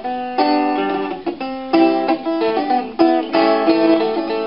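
Solo acoustic guitar playing a plucked instrumental introduction in a vaguely ragtime feel, a run of sharply picked chords that change every half second or so.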